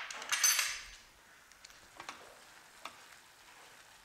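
Carrots, green beans and onion frying in a pan, with a burst of sizzling in the first second that dies down. A few light taps of a spatula against the pan follow as the vegetables are stirred.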